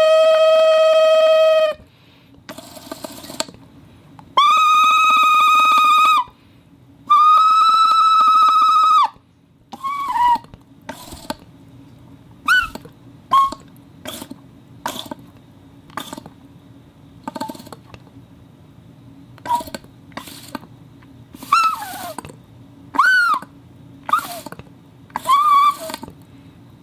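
Improvised whistles made from a glass bottle, rubber sheet and styrofoam. First come three held whistle tones of about two seconds each, the first lower and the next two higher. Then comes a long run of short, squeaky, animal-like chirps that bend up and down in pitch.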